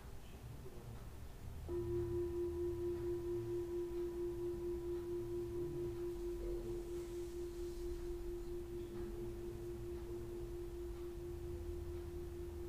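Hand-held metal singing bowl struck once with a wooden mallet about two seconds in. It rings one steady, pure note with a faint higher overtone, wavering slowly and fading only a little.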